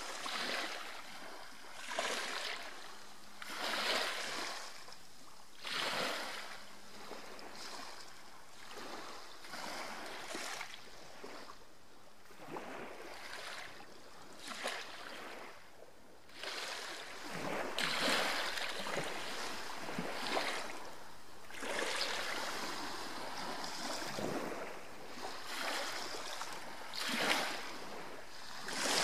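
Water washing in like surf, a hissing rush that swells and fades every couple of seconds.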